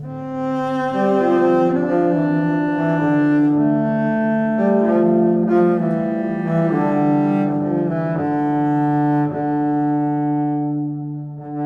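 Background music of long, held low notes that change every second or so.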